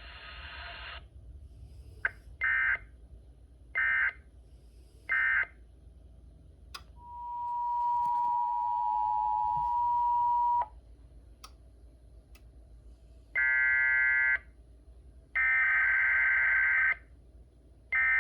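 NOAA Weather Radio EAS/SAME digital data bursts over a radio receiver. Three short end-of-message bursts come first, then a steady mid-pitched tone swells in and holds for about three and a half seconds before cutting off. Three longer SAME header bursts follow, the coded header that opens the next alert, with a few sharp clicks in between.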